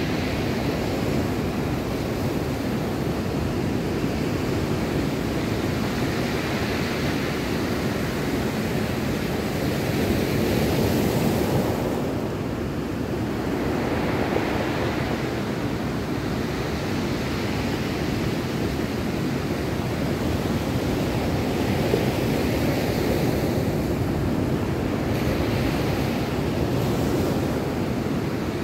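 Ocean surf breaking on a cobble beach: a steady wash of waves that swells and ebbs every few seconds.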